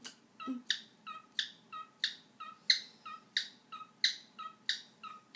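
Cockatiel beatboxing: an even rhythm of short chirps alternating with sharp clicking pops, about three sounds a second.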